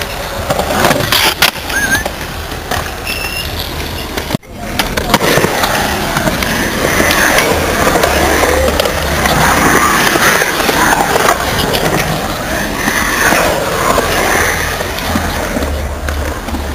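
Skateboard wheels rolling and carving on the concrete of a skatepark bowl. The sound breaks off briefly about four seconds in, then returns louder.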